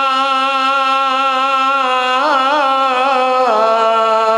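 A man singing a Punjabi naat holds one long note with a slight waver. About halfway through he adds a quick wavering ornament, then steps down to a lower held note.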